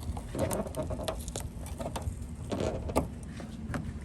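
Scattered light clicks and taps of hands handling a stick-on spoiler against the car's trunk lid.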